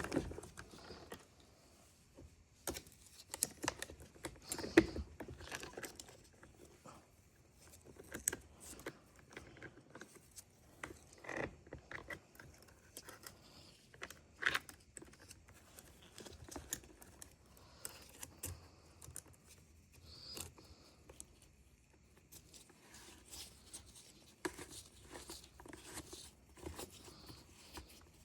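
Scattered clicks, taps and scrapes of small parts and hand tools being handled during a chainsaw repair, with some rustling, loudest about 5 and 14 seconds in.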